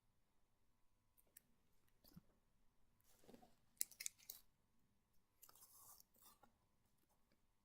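Faint rustling and crinkling of comic books being handled, with a few sharp clicks about four seconds in.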